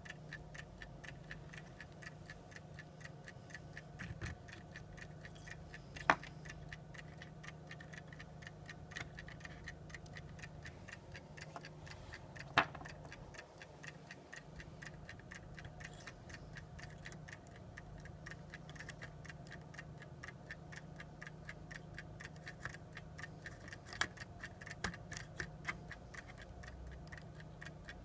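Frog clock ticking steadily and fast, with a few louder single clicks.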